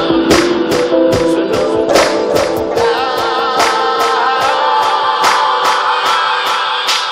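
Hip-hop track near its close: a steady beat of percussion hits, about three a second, under sustained wavering melodic lines, with no rapping.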